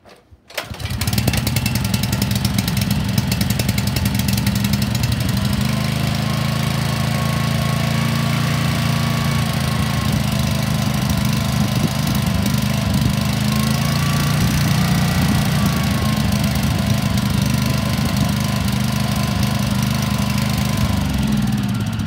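Small OHC four-stroke petrol engine on a portable engine-driven water pump, pull-started about a second in and catching at once, then running steadily. Near the end it is shut off and its pitch falls as it winds down.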